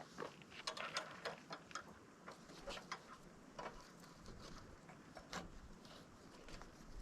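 Scattered light clicks and taps at an uneven pace, busiest in the first half.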